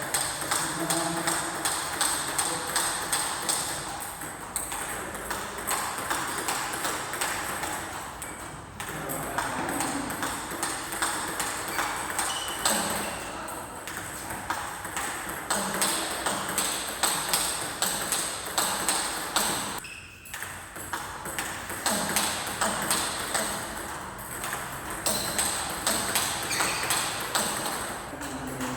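Table tennis rallies: ping-pong balls clicking off bats and tables many times a second, with overlapping hits from several rallies in a hall.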